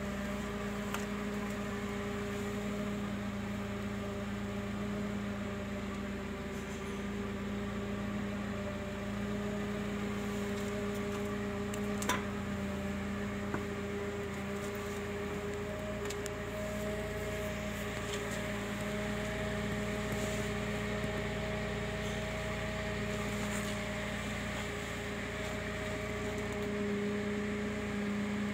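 A steady, even machine hum at one constant pitch, with a sharp click about twelve seconds in.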